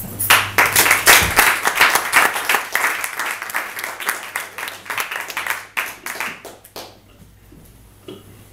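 Audience applauding a reader on her introduction, dying away about seven seconds in.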